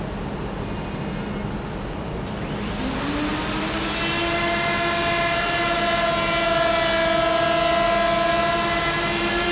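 Snare-bed cutting machine's cutter motor spinning up with a rising whine about three seconds in, then running steadily as it cuts the snare bed into an oak snare drum shell. A low steady machine hum underlies it from the start.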